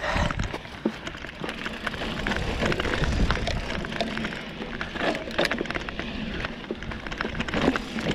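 Specialized Rockhopper aluminium mountain bike riding down a dirt singletrack: tyres rolling over dirt, with a steady run of small clicks, knocks and rattles from the bike over the rough trail.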